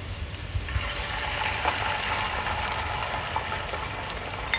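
Beaten egg being poured into a hot oiled frying pan over browned onions. A loud sizzling hiss starts about a second in as the egg hits the oil, and keeps on.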